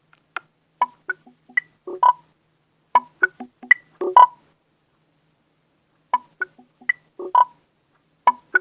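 Nexus 5X alarm tone: a short phrase of about a dozen quick, high plucked notes, played once, then starting over after a pause of nearly two seconds.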